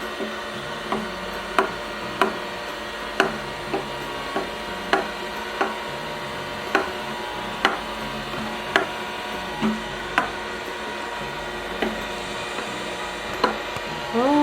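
Battery-powered toy vacuum cleaner's small motor running with a steady whirring hum, over which come irregular sharp clicks and taps, about one or two a second.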